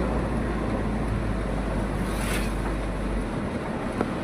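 Steady road and wind noise of a moving vehicle, with a low rumble that drops away about three seconds in, a brief hiss a little past two seconds in, and a sharp click near the end.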